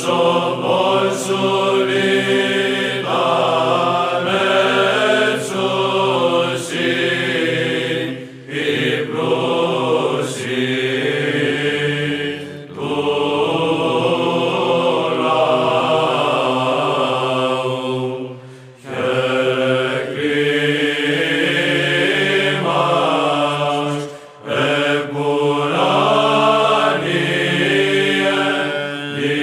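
Orthodox-style chant: a sung melody over a held low drone, in long phrases with a few short breaks between them.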